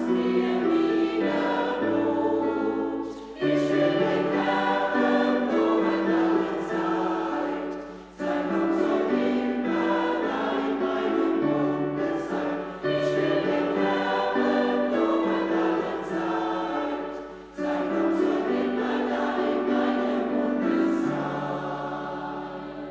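Church choir, mostly women's voices with a few men, singing a hymn with piano accompaniment, in phrases of about four to five seconds with short breaks between them. The last chord fades away near the end.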